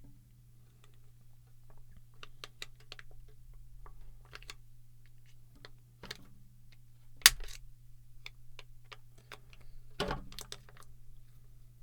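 Scattered small clicks and taps of a broken-open plastic ink cartridge being handled and worked at, with one sharp knock about seven seconds in and a short cluster of knocks about ten seconds in, over a steady low hum.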